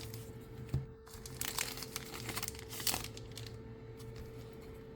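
Foil booster-pack wrapper crinkling as it is handled, in irregular rustling bursts, the biggest about a second and a half in and again near three seconds.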